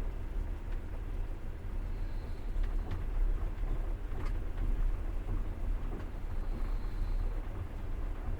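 Passenger train running on the rails: a steady low rumble with a few faint clicks, and a faint, brief high whine twice.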